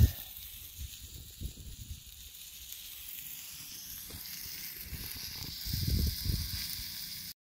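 Steady sizzling hiss from fresh Dall sheep meat cooking on a flat rock heated by a camp stove's flame, with a low rumble about six seconds in.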